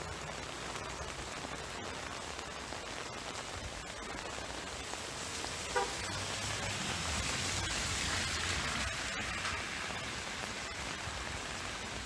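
Heavy rain falling steadily, growing louder for a few seconds midway. A short, sharp sound cuts through it about six seconds in.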